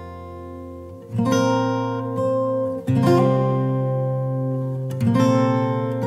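Background music on a strummed acoustic guitar: ringing chords, with a new chord struck about every two seconds and left to fade.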